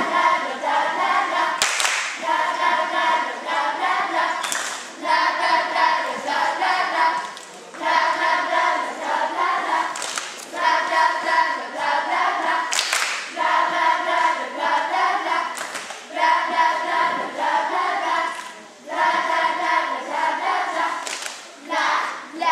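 A group of girls singing together in short repeated phrases, punctuated every few seconds by a sharp body-percussion hit such as a clap.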